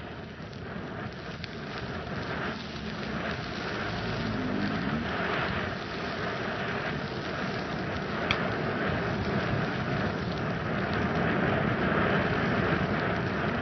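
Ground fountain firework spraying sparks: a steady rushing hiss with scattered crackles and one sharper pop, building in loudness over the first few seconds.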